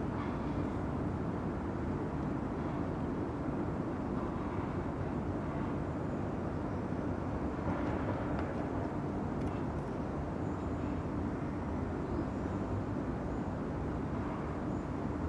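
Steady low outdoor background rumble with a faint hum and no distinct events.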